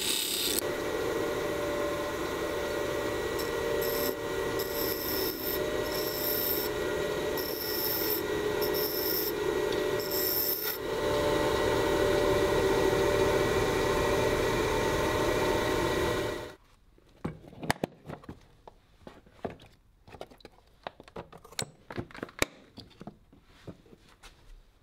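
Bench grinder running with a steady motor hum while a steel plane iron from a Stanley Bedrock No. 608 is pressed to the wheel, grinding with short bursts of high hiss between about 3 and 11 seconds in. The grinder sound stops abruptly a little past halfway, leaving light clicks and knocks of tools being handled on the bench.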